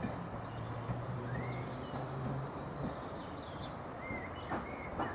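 Heritage diesel multiple unit running slowly with a low, steady engine hum that stops about halfway through, while birds chirp. A few short clicks come near the end.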